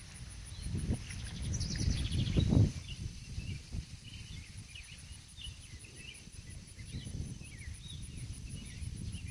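Outdoor ambience: small birds chirping now and then, an insect calling in a steady high-pitched pulse, and a low rumbling noise that swells to its loudest about two and a half seconds in.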